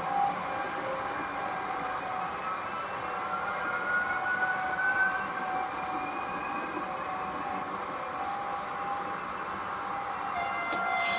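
H0 model freight train running past: a running rumble with steady high whining tones, one of them rising in pitch for a couple of seconds midway. A single click near the end.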